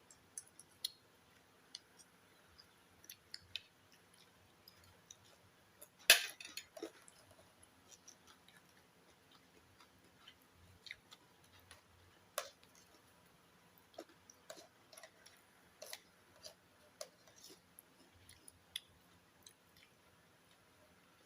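Sparse small clicks and taps of eating by hand, with soft chewing, and one louder knock about six seconds in.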